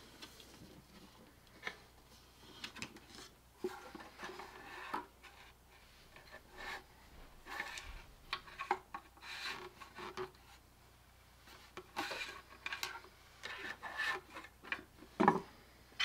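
Hands handling a wooden birdhouse, its lid and parts being moved: soft rubbing and scraping with scattered light knocks and clicks, and a louder knock near the end.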